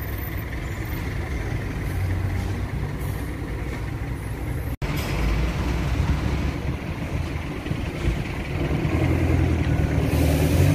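Steady low rumble and hiss of background noise, with no voice. There is a brief dropout about five seconds in where the recording is cut.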